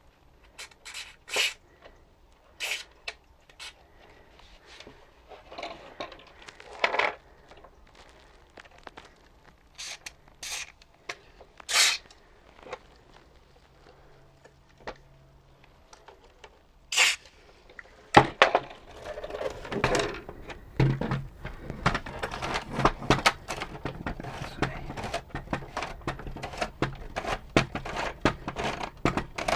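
Parts of an Omnibot 2000 robot's tray mechanism handled by hand: scattered clicks and knocks, then, about 18 seconds in, a dense run of rapid clicking and rattling that goes on to the end.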